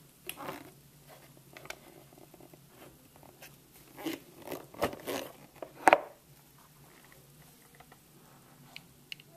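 Scattered clicks and knocks of hard plastic parts of a Beaba Babycook baby-food steamer-blender being handled, with a cluster about four to five seconds in and the loudest knock about six seconds in.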